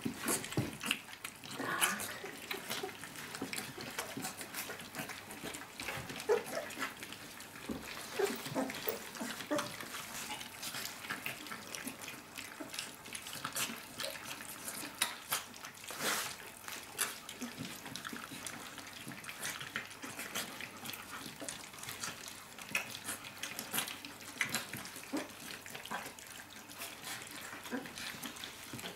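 A litter of 23-day-old puppies eating their first solid food together from one round metal dish: continuous wet lapping and smacking with many irregular small clicks.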